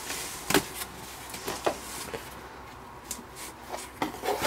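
A cardboard shipping box being opened by hand: flaps pulled apart and cardboard rubbing and rustling, with several sharp taps and crinkles.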